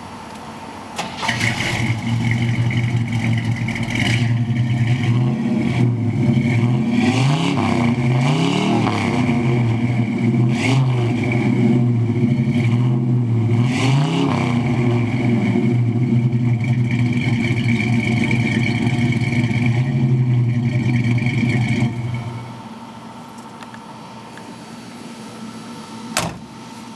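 Chevrolet small-block V8 with a loud aftermarket exhaust, brought up to a raised steady speed about a second in and revved several times, each rev rising and falling in pitch. About 22 seconds in it drops back to a quieter idle, and a single sharp click sounds near the end.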